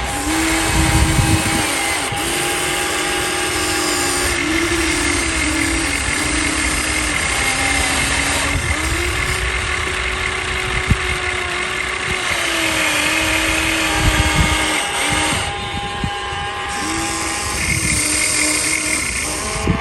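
Electric motors of a Huina radio-controlled excavator whining while it works, the pitch repeatedly rising and falling as the arm and bucket move under changing load, with a few low knocks.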